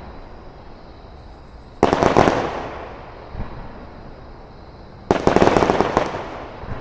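Fireworks exploding: two loud bangs about three seconds apart, each dying away over about a second. The second is a rapid string of cracks.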